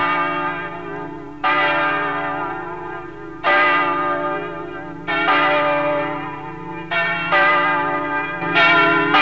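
Church bell rung by its rope, tolling slowly: six strokes about one and a half to two seconds apart, each ringing on and fading into the next over a steady hum. It is being tolled for a death.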